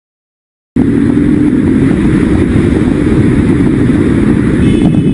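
Loud vehicle engine and road noise picked up by a dashcam, cutting in abruptly after a silent gap about three quarters of a second in and holding steady; a few faint high tones join near the end.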